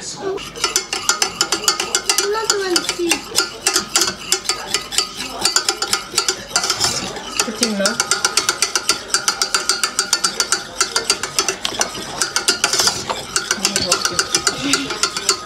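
Wire whisk beating a thick mixture in a stainless steel pot, the wires clicking and scraping against the metal in a fast, steady rhythm.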